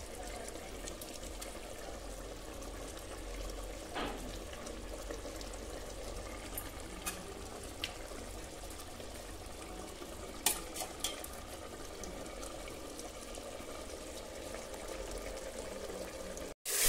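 Chicken curry bubbling as it simmers in an open aluminium pressure-cooker pot over a stove flame. It makes a steady bubbling hiss, with a handful of small sharp pops.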